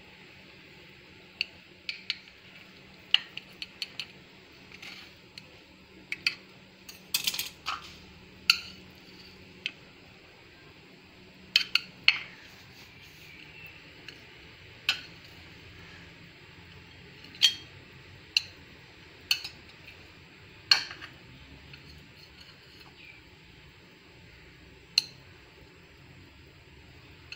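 A metal knife clinking against a glass baking dish and a glass plate as set barfi is cut and lifted out: irregular sharp clinks, a few of them with a brief ring.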